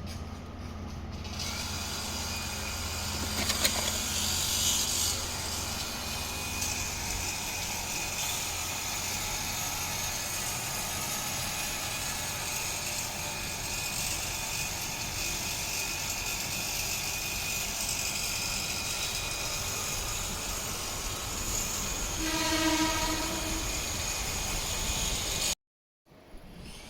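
Electric commuter train running past on the line, a steady clattering rumble of wheels and running gear, with a short horn blast about 22 seconds in. The sound cuts off abruptly near the end.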